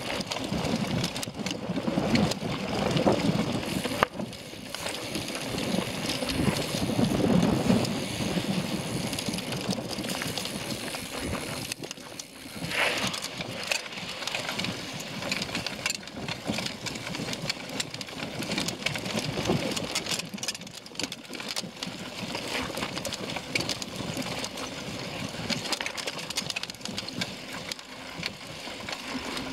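Mountain bike rolling over a rough, rocky dirt singletrack: a steady rumble of tyres and rattling bike parts, full of small knocks and clicks. It swells louder twice in the first eight seconds or so.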